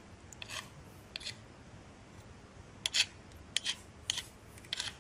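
Hot tip of a 60 W adjustable-temperature soldering iron rubbed in a tin of melting rosin flux: a string of short, scratchy bursts, the loudest about three seconds in.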